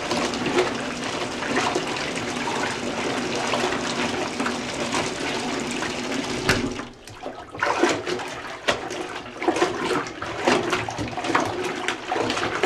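Water running from the bathtub faucet into a bucket, while clothes are swished by hand through soapy water in a 5-gallon plastic bucket. About six and a half seconds in, the steady rush gives way to separate, uneven sloshes.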